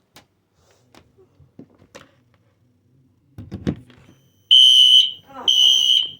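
Wheelock NS electronic fire alarm horn sounding as it is powered up for a test: a loud, high, steady horn tone in pulses, two blasts with a short gap between them, starting about four and a half seconds in. A thump comes just before it.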